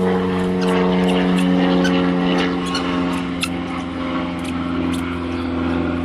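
An engine running steadily with an even, low hum that does not change pitch, with scattered sharp clicks over it.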